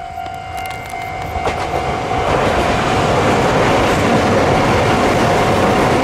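Kintetsu electric train passing over a level crossing, its wheel and running noise building about two seconds in and staying loud, with the clickety-clack of wheels over rail joints. Under it the crossing's warning bell rings a steady tone.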